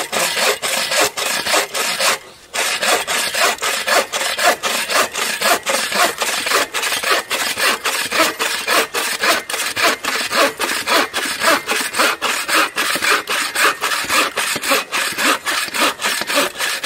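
Agawa Boreal 21 folding bow saw cutting through a length of oak in a quick, even rhythm of back-and-forth strokes, with one short pause a couple of seconds in.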